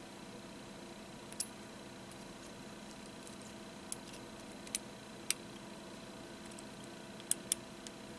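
Small, sharp metallic clicks, about seven at irregular intervals, as a wire-type spark plug gap tool is worked against the ground electrode of a copper spark plug to set the gap. A steady faint hum runs underneath.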